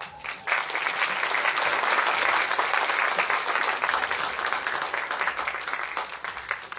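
Audience applause: many people clapping together, starting about half a second in and dying away near the end.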